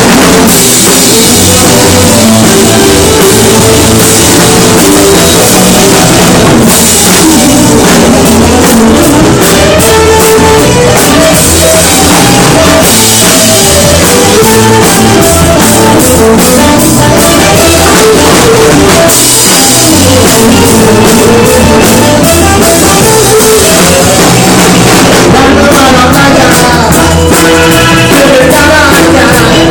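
Loud rock music with a full drum kit driving a steady beat under pitched instruments, part of a rock medley.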